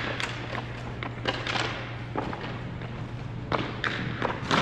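Irregular thumps and taps from a game in play, such as ball bounces and players' footfalls, about nine in all at uneven spacing, over a steady low hum.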